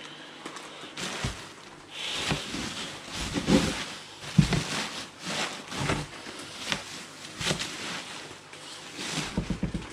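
Plastic fish-shipping bags being handled: crinkling and rustling, with irregular knocks and taps, busier from about two seconds in.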